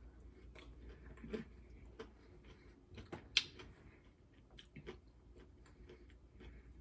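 A person eating close to the microphone: scattered small mouth clicks and chewing sounds, with one sharper click about three and a half seconds in.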